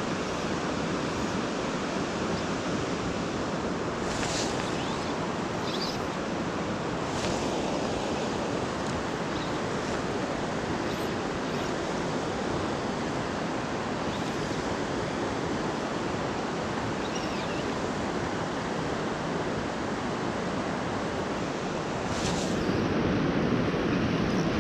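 Steady rushing of a fast river current flowing past, with a few faint clicks.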